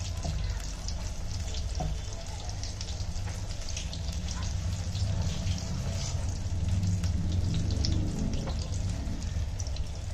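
Battered vegetable pakoras deep-frying in hot oil in a kadhai: steady sizzling with many small crackles and pops, over a low steady rumble.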